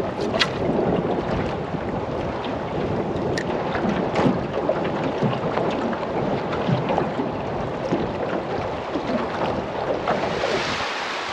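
Wind buffeting the microphone over water lapping around a small boat, a steady rushing noise with a few light knocks.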